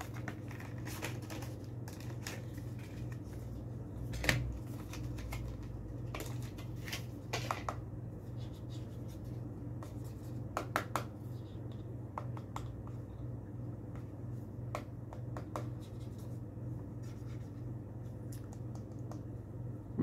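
Small cardboard box and plastic packaging of a new SSD being handled and opened, heard as scattered clicks and scratches with a louder knock about four seconds in.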